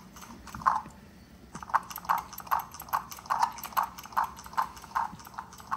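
Toy bird making a run of short, evenly spaced chirps, about two and a half a second.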